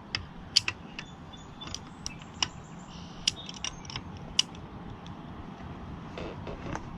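Knipex Cobra water pump pliers gripping and turning a steel gas pipe: scattered sharp metal clicks with faint creaking as the hardened teeth bite into the pipe and it is tightened.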